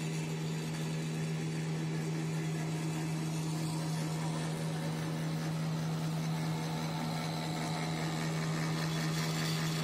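Plastic granule extrusion and pelletizing line running: a steady low motor hum under continuous machinery noise, growing slightly louder near the end.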